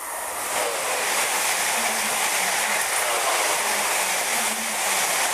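Passenger train passing close by: a loud, steady rush of wheels on rail that swells in the first half-second and holds.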